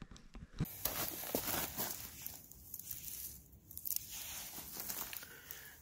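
Dry pine needles and leaf litter on the forest floor crackling and rustling, with many small irregular clicks.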